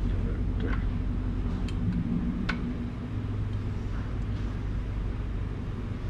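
A wrench cranking the threaded rod of a clutch compression tool to compress the spring of a CVT secondary clutch, giving a few scattered sharp metal clicks. A steady low hum runs underneath.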